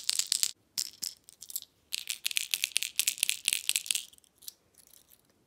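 Megabass Pop Max topwater popper shaken by hand, its internal rattle clacking in fast runs with a one-knocker style sound. One run of shaking stops about half a second in. After a few scattered clicks, a second run goes from about two seconds to four and then trails off into a few faint ticks.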